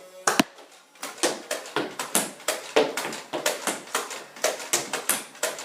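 Nerf blaster firing foam darts again and again. A sharp double click comes first, then quick shots about three a second.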